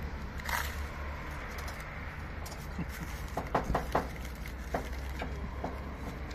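Crunching as someone bites into and chews a sandwich in crisply toasted bread: a few sharp crackles, the loudest about three and a half to four seconds in, over a steady low hum.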